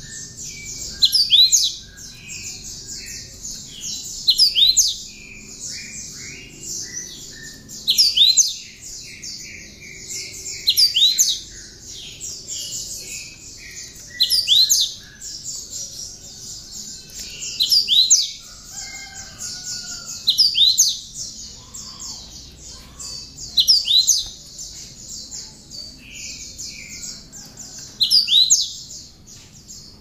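Cinereous tit (gelatik batu) singing a song filled with mimicked bar-winged prinia (ciblek) phrases. Loud, sharp high sweeping notes come back about every three seconds, with softer series of falling notes between them.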